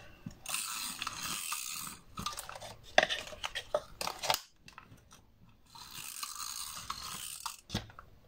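Paper and cardstock being handled and pressed as box edges are glued: rustling and crinkling in two stretches, with a run of light taps and clicks in between, the sharpest about three seconds in.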